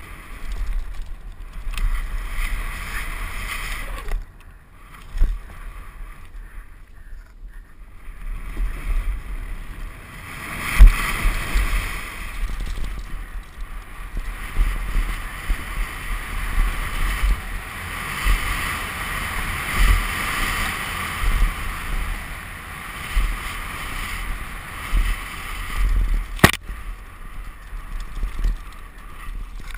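Downhill mountain-bike ride heard from a helmet-mounted action camera: wind buffeting the microphone and tyres rumbling over a dirt and rock trail, with knocks and rattles as the bike hits bumps. One sharp hit about eleven seconds in, and another near the end.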